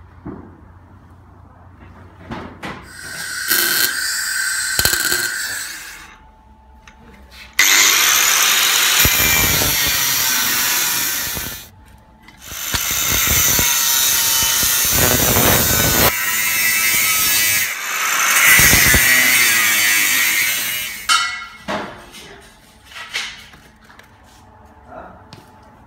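Power tool working steel in several runs of a few seconds each with short pauses between, the first run weaker with a steady whine, followed by a few scattered clicks near the end.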